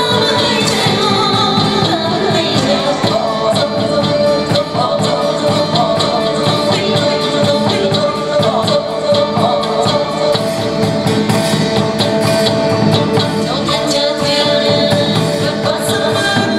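Traditional Vietnamese water puppet theatre music: an instrumental ensemble with singing and frequent percussion strokes.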